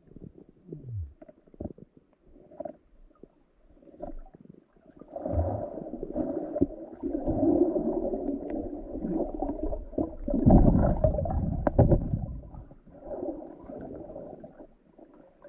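Muffled underwater rumbling and gurgling picked up by a GoPro as it sinks to the riverbed, with a short falling tone about a second in and thuds. It grows loudest in the middle.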